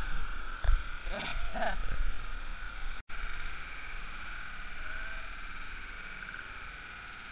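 Action camera underwater: muffled sloshing and thumping of water against the housing, with a faint muffled voice. After a sudden cut about three seconds in, a steady watery hiss.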